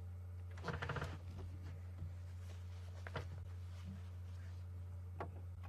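A steady low hum with a short crackle of clicks about half a second in, then single faint clicks around three and five seconds in.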